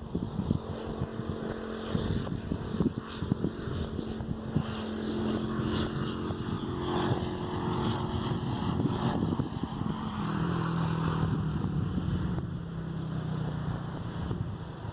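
Wind gusting on the microphone, over a steady engine drone whose pitch drops about ten seconds in.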